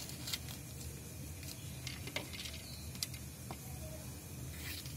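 Small knife cutting through a green bell pepper held in the hand: a few scattered, short, crisp clicks and snaps, over a steady low background hum.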